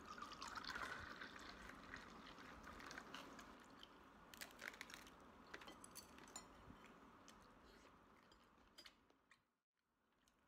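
Faint sounds of a meal: makgeolli poured from a bottle into a glass in the first second or so, then quiet chewing and small clicks and taps of utensils that fade out near the end.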